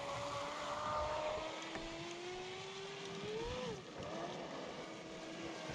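Distant whine of an RC speedboat's Leopard 4074 1800kv brushless motor running a cool-down pass across the water. Its pitch climbs slowly, then rises and falls quickly about three and a half seconds in.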